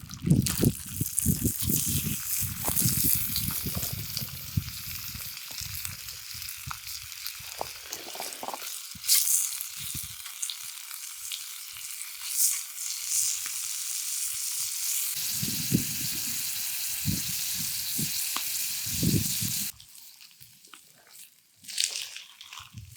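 Eggs frying in oil in a pan, a steady sizzle with a few low knocks from handling the pan. The sizzle cuts off suddenly about 20 seconds in.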